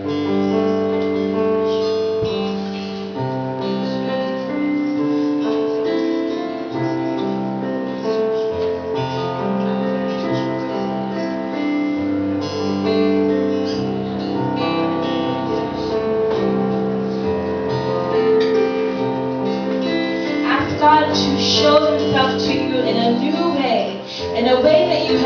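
Slow instrumental music of long held chords. A voice joins in near the end.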